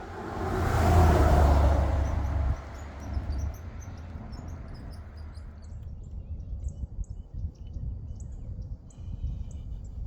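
A road vehicle passing by, its tyre and engine noise swelling with a low rumble and then fading away over about six seconds. Birds chirp through the second half.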